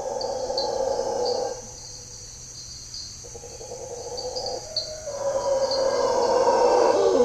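Mantled howler monkeys roaring in long, rough bouts; the roaring breaks off about one and a half seconds in, comes back about three seconds in, and is loudest near the end. Over it, short high chirps repeat about twice a second.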